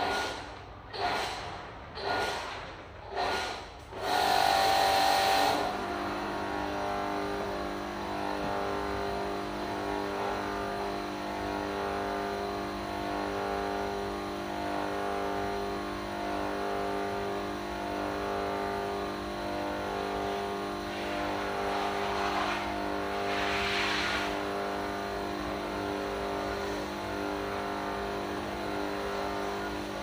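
A small electric pressure-washer pump, the kind used to jet-clean an air conditioner evaporator. After a few short bursts it comes on about four seconds in and then runs steadily, with the hiss of the water spray.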